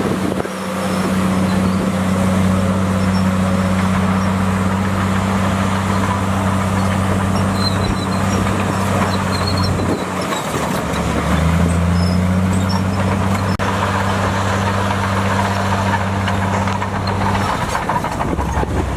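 Heavy earthmoving machinery's diesel engine running steadily, its note dropping about ten seconds in and changing again near the end.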